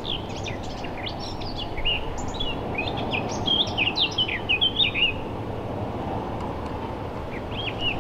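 A songbird singing a rapid run of varied, short chirps for the first five seconds or so, and again briefly near the end, over a steady low background rush.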